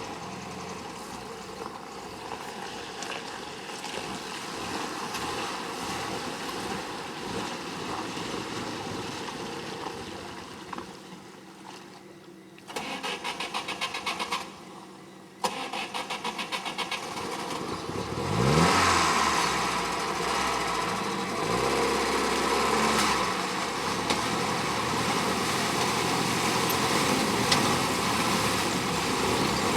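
A vehicle engine is cranked by its starter in two rhythmic bursts and catches on the second try about 18 seconds in. It revs up with a rising pitch, then keeps running.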